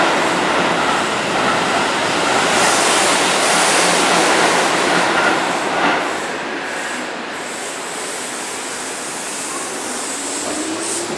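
Keihan 2200-series electric train at a station platform: a loud, even rush of noise for about the first six seconds, then quieter. From about nine seconds in, a rising motor whine as the train starts to pull away.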